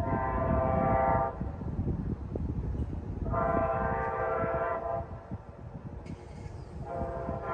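Diesel locomotive horn of an approaching train blowing two long blasts, each a second or more, and starting a third near the end, over a low rumble.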